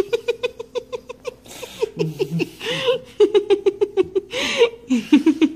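Domestic cat chattering: a fast run of short chirps at an even pitch, about seven a second, broken now and then by a longer rising-and-falling chirp.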